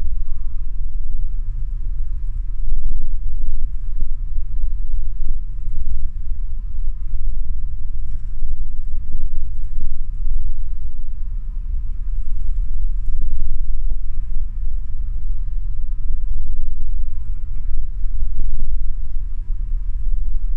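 Steady low rumble of a car ferry's engines and hull vibration, heard from inside a car on the car deck, with a few faint steady machinery tones above it.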